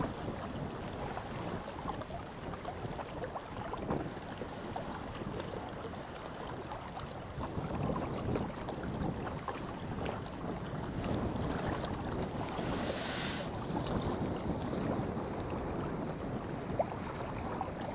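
Small waves lapping and splashing against shoreline rocks, with wind buffeting the microphone.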